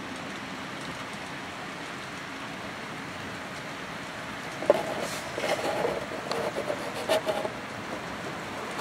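HO scale model locomotives rolling along the layout track with a steady whirring hiss. A sharp click about halfway through is followed by a run of clicks and rattles for about three seconds.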